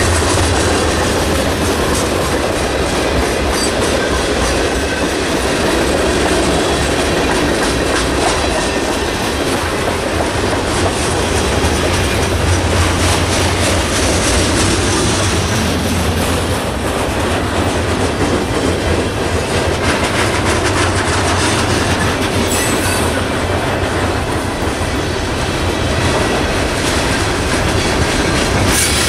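A CSX mixed freight train's cars rolling past close by: a steady, loud rumble of steel wheels on rail, with the clickety-clack of wheels crossing rail joints.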